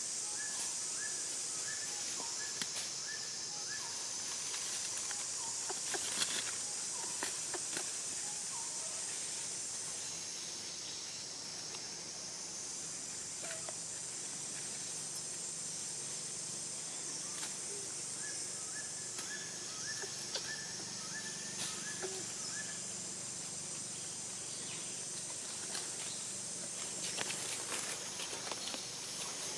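Steady, high-pitched drone of forest insects, with two runs of short repeated chirps, one near the start and one about two-thirds of the way through, and scattered faint rustles and clicks.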